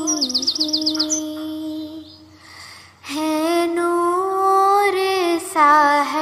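Background music: a devotional Urdu song sung in long held notes, with quick bird chirps over it in the first second. It drops to a brief lull about two seconds in, then the singing resumes.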